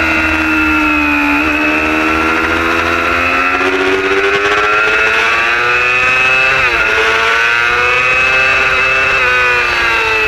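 Superbike racing motorcycle's engine running hard at high revs on track. The pitch climbs and falls as the bike accelerates and slows, with short dips about a second and a half in and again near seven seconds in.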